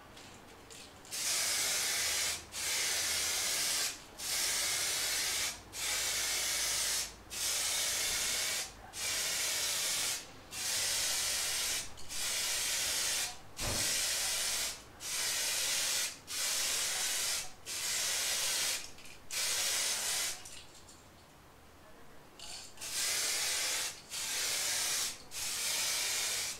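Soft99 clear lacquer aerosol can spraying in short, even hissing passes of about a second and a half each, with brief gaps between them and one longer pause about 21 s in. These are the wet passes of the final clear coat, laid on to bring up the gloss.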